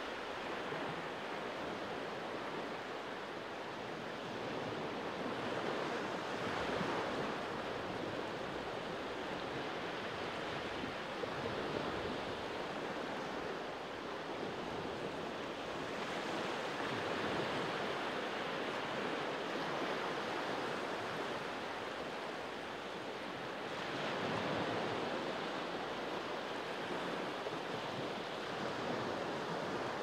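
Small sea waves breaking and washing along a pebble and rock shore: a steady surf wash that swells and eases every several seconds.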